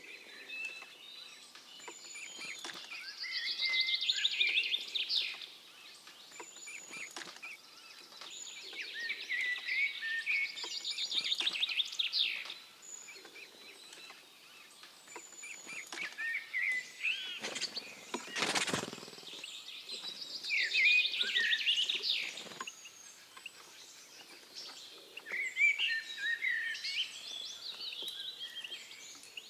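Wild songbirds singing and calling: warbling phrases come every few seconds, with short high, thin notes between them. About two-thirds of the way through there is a single brief, loud noise.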